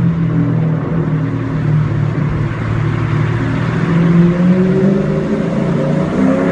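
Mercedes CLK500's V8 with a straight-pipe exhaust running loud under steady throttle, its note rising slightly and swelling about four seconds in.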